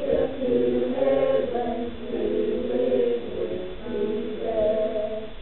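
A small choir of mixed male and female voices singing together, holding long notes.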